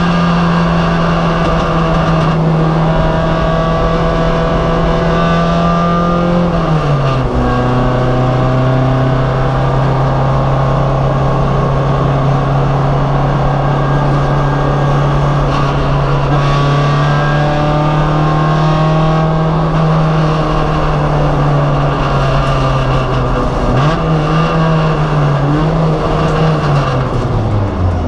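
Race car engine heard from on board, running hard at a steady pitch for long stretches; the pitch drops about a quarter of the way in, climbs briefly near the end and drops again just before it stops.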